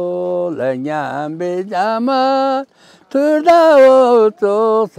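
An elderly man sings a traditional song of Ladakh's Aryan community solo, in long held notes that slide up and down. He pauses briefly for breath about three seconds in.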